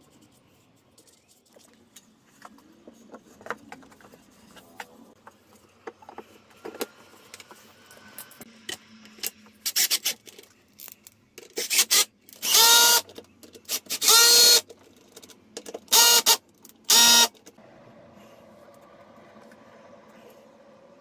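Cordless drill-driver running in about five short bursts, as screws are driven into the wooden table frame. Some handling clicks come first.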